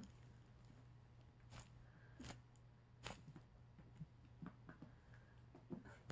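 Near silence over a faint steady low hum, with a few faint scattered taps and scratches from kittens' paws and claws on a plastic tub lid.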